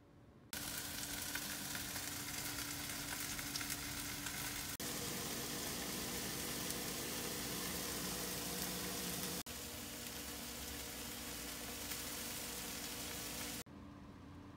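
Food sizzling in a frying pan in three stretches of about four seconds each, cut one into the next, over a low steady hum.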